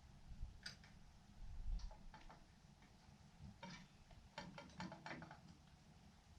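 Near silence with a few faint clicks and light taps, most of them bunched together about four to five seconds in.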